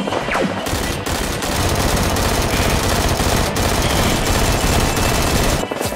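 Automatic gunfire: a continuous, rapid rattle of shots that starts about half a second in and stops just before the end.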